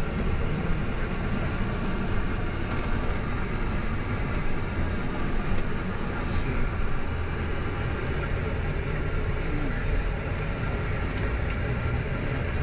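Tour bus engine and road noise heard from inside the cabin, a steady low rumble as the bus drives.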